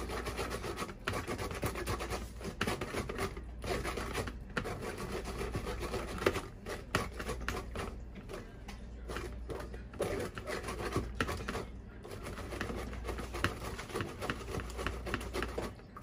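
Silicone spatula scraping and pressing passion fruit pulp and seeds through a metal mesh strainer, in continuous scratchy rubbing strokes with a few short pauses and occasional sharp taps.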